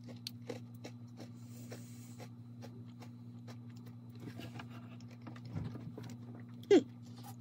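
Faint crunchy chewing of a Toffee Crunch Oreo with sugar crystals in the cream, small crackling clicks scattered throughout over a steady low hum. Near the end there is one short, loud sound that slides down in pitch.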